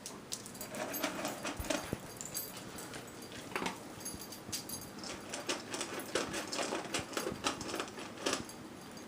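A dog eating from its food bowl: an irregular run of small crunches and clicks.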